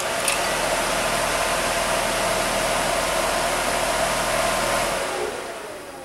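12-volt RV furnace blower motor spinning a new blower wheel, a steady whir of rushing air with a hum, after a click as the ground lead touches the battery. About five seconds in the power is cut and it winds down, falling in pitch. It runs smoothly, without noise from the broken old wheel's imbalance.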